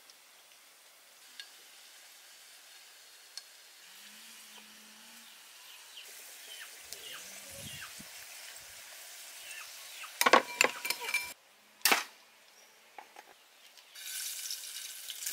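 Food frying in a pan over a charcoal stove, a faint sizzling, with a spatula clattering against the pan and bowl in a run of clinks about ten seconds in and once more shortly after. Near the end the sizzling grows louder as fresh pieces drop into the hot oil.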